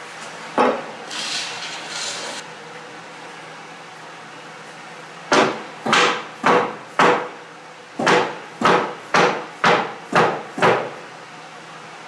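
Mallet blows on the wooden cabinet parts during the glue-up: a single knock, a brief scraping sound, then a run of ten knocks at about two a second.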